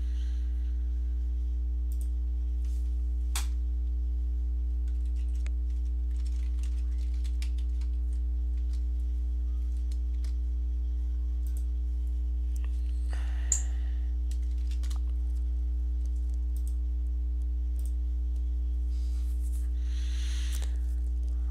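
Computer keyboard typing, with scattered keystrokes and clicks, over a loud steady low electrical hum.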